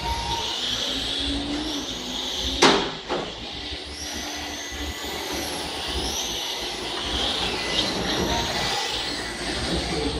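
Motors of radio-controlled model trucks racing, several whines rising and falling in pitch as they speed up and slow down. A sharp knock about 2.7 s in.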